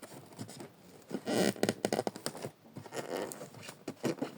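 Cardboard box and its packing being handled and pulled open: a run of irregular rustling, scraping and tearing noises, faint at first and busier from about a second in.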